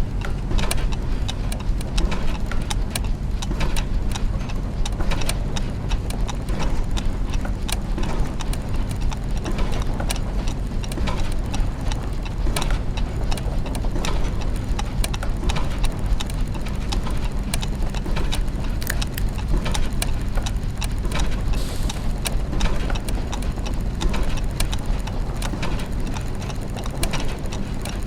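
Clockwork gears and mechanisms running together: many overlapping ticks and clicks over a steady low mechanical hum.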